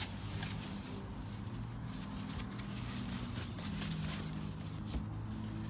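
Faint rustling and crinkling of a plastic bag and protective sheet as a guitar body is pulled from its box, over a steady low hum.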